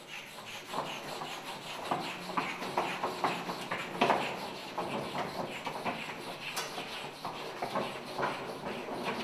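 White chalk scribbling hard and fast on a blackboard: scratching, rubbing strokes in quick, uneven succession, the loudest about four seconds in.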